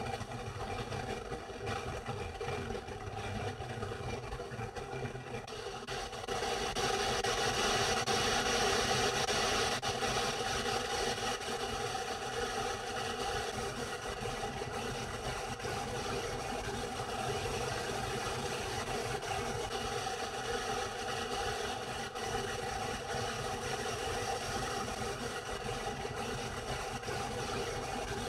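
Steady hum and hiss inside a car's cabin, like an engine idling, growing louder about six seconds in and then holding steady.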